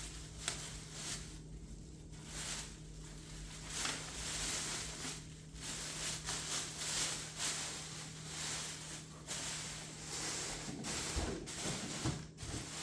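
Packaging and parts of an RC plane kit being handled and rustled during unboxing, in uneven scraping, crinkling bursts with a few light knocks near the end.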